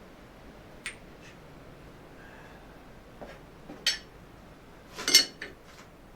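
Small hard parts being handled and knocked together at a workbench: a few separate clinks, with the loudest cluster about five seconds in.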